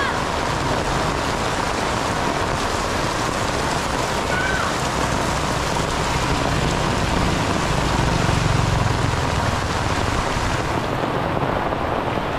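Heavy rain pouring onto a wet paved street, a steady hiss. A motorcycle engine rumbles past about eight seconds in, and the upper part of the rain hiss falls away near the end.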